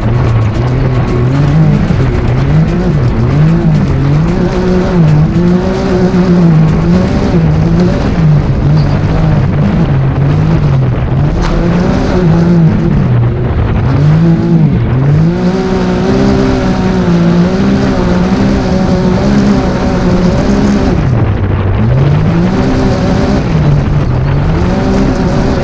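Turbocharged three-cylinder engine of a Can-Am Maverick X3 side-by-side racing on a dirt track, its pitch climbing and dropping again and again, about every second or two, as the throttle is worked.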